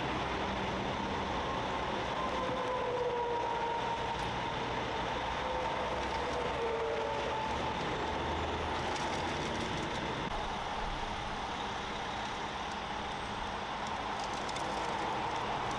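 Heavy truck engines running steadily, with a faint whine that drifts slightly lower in pitch over the first half.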